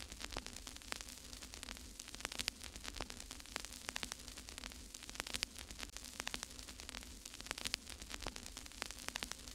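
Static: a steady hiss with dense, irregular crackles and clicks over a faint steady hum.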